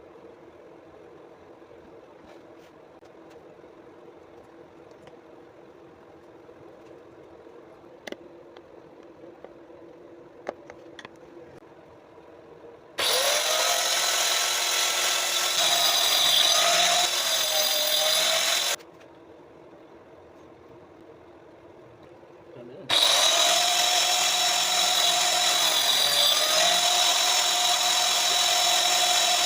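Angle grinder with a wood-cutting blade running in two loud bursts of about six seconds each, its whine dipping in pitch and recovering as the blade bites into wood. Before the first burst there is only a low steady hum and a couple of faint clicks.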